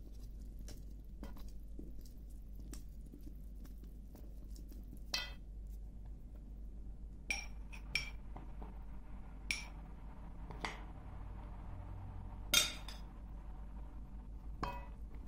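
A metal fork clinking against a glass mixing bowl while flour is worked into a wet batter: about seven sharp, ringing clinks, the loudest about three-quarters of the way through, over faint soft scraping of the stirring.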